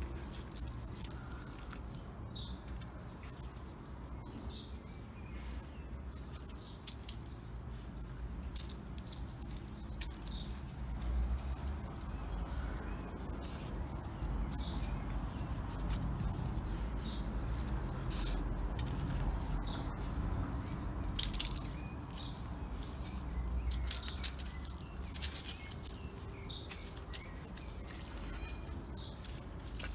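Small birds chirping over and over, high and short, over a steady low rumble. There are a few sharp clicks, loudest about two-thirds of the way through.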